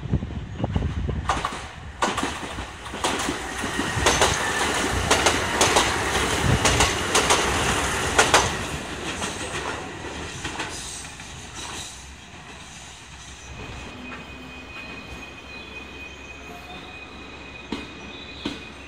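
Limited express trains running past: for the first eight seconds or so a loud rush of train noise with the clack of wheels over rail joints, then quieter running as a diesel railcar passes a level crossing, with a thin steady high tone in the later part.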